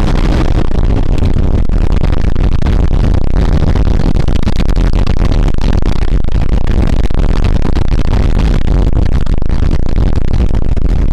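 Loud cab noise from a Chevrolet D-20 pickup driving on a rough, wet dirt road: a steady low engine and road drone with constant rattles and knocks.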